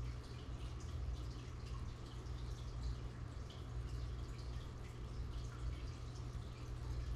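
Aquarium filter water trickling and dripping, with many small splashes and bubble ticks, over a steady low hum from the pump.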